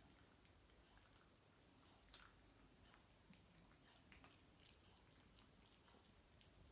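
Faint, irregular clicks and crunches of a Chihuahua and a cat chewing chicken bones, the sharpest about two seconds in.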